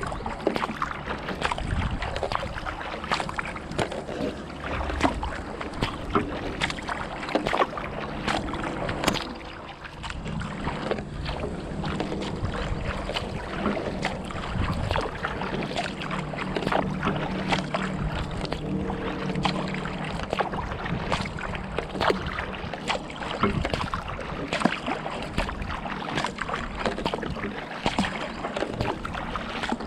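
Kayak paddling on calm water: paddle blades dipping and splashing, with water dripping off the blades and running along the hull in many small irregular splashes.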